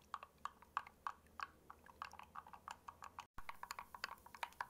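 Hand-stirring a thick homemade gelatin and aloe vera gel face cream: faint, irregular wet clicks and squishes, several a second, with a brief break a little past three seconds in.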